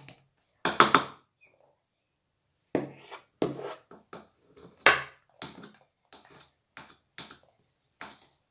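A spoon scraping and knocking against a plastic pot while stirring a thick glue mixture for slime, in a series of irregular strokes with short pauses between them.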